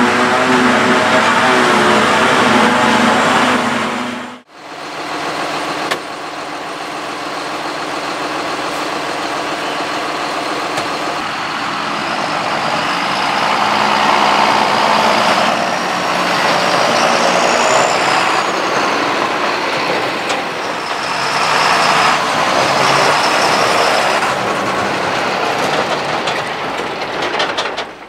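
John Deere tractors and a self-propelled forage harvester at work chopping grass for silage, their diesel engines running steadily. The sound breaks off briefly about four and a half seconds in, and a high whine rises and falls a little past the middle.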